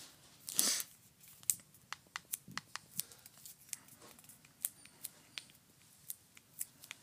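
Faint, scattered sharp clicks from fingers handling an Apple TV Siri Remote, with one short rustle just under a second in.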